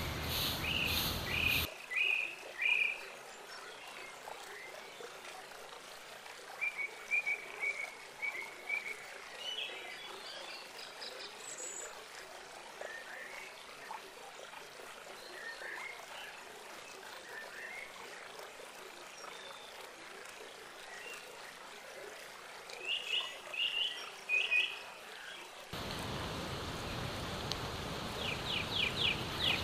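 Forest animals calling: scattered short chirps, often in clusters of three or four quick notes, over a faint hiss. A louder rustling noise fills the first two seconds and returns near the end, with a fast run of ticks at the very end.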